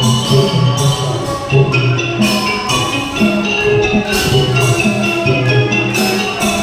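Thai piphat mon ensemble playing, led by khong mon gong circles struck with mallets: a continuous run of bright, ringing metallic gong notes over lower sustained tones.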